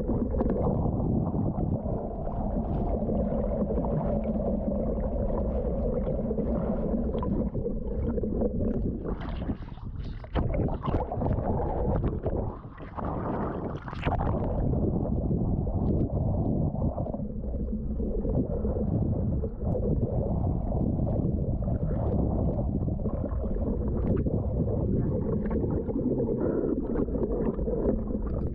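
Water rushing and churning over a mask-mounted action camera during hard swimming underwater, heard as a dense, muffled rush. About halfway through there is a sharp splash as the camera breaks the surface.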